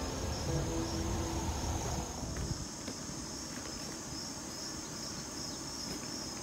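Outdoor insect chorus of crickets or katydids: a steady, evenly pulsing high chirp that keeps on throughout. A low rumble underneath fades out about two seconds in.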